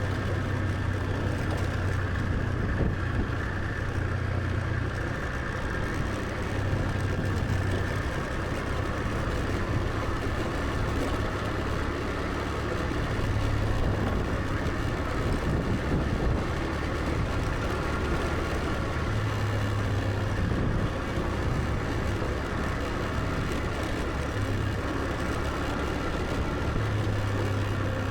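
Motor scooter engine running steadily while riding, a low hum that swells and eases a little, over an even rush of road and wind noise.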